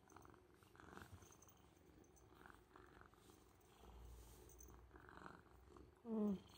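Orange tabby kitten purring faintly while it rubs against a hand, with one brief call falling in pitch near the end.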